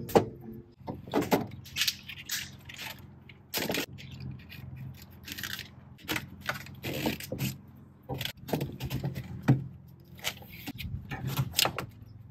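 Electrical tape being pulled off the roll and wrapped around a battery cable end, with irregular scrapes, rustles and clicks as hands handle the cables and fittings.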